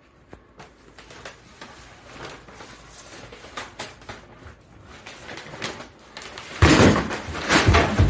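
Paper bag crinkling and scraping over a wooden floor as a cat moves about inside it: scattered light rustles, then loud continuous crumpling from about two-thirds of the way in.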